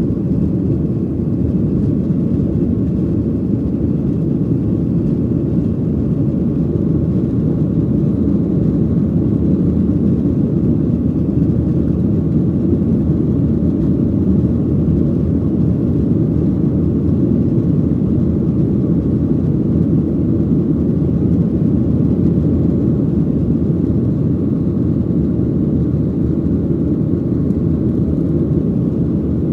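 Cabin noise of a Boeing 737 climbing just after takeoff, heard inside over the wing: the jet engines and rushing air make a loud, steady low rumble.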